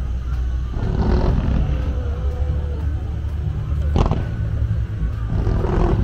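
Aerial fireworks going off: a steady low rumble of bursts, with one sharp bang about four seconds in.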